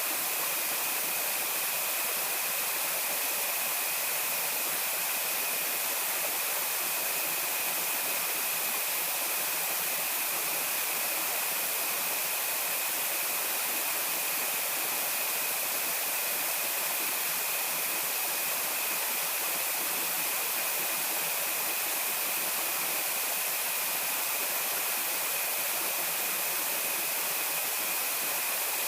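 Steady rush of flowing stream water, unchanging throughout, with a thin steady high-pitched whine running over it.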